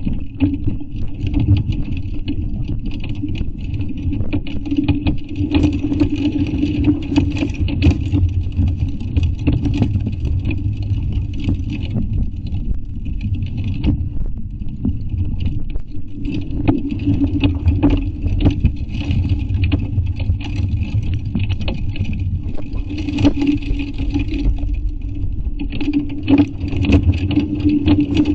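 Hail and heavy rain pelting a car's body, a dense, unbroken stream of hard ticks and knocks over a steady low rumble.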